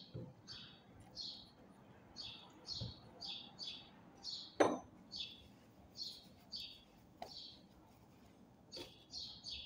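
A small bird chirping over and over, short high chirps two or three a second, with a few sharp metallic clinks of parts being handled, the loudest about halfway through.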